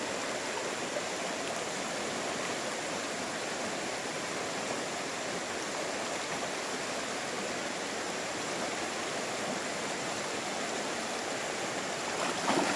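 Fast-flowing shallow river rushing steadily, an even wash of water noise with no breaks.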